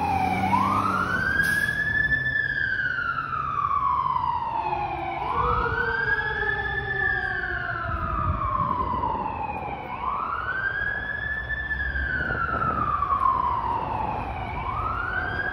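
Fire apparatus siren sounding a slow wail. Each cycle climbs quickly in about a second and a half, then falls away slowly over about three seconds, repeating about every five seconds, over low engine and traffic rumble.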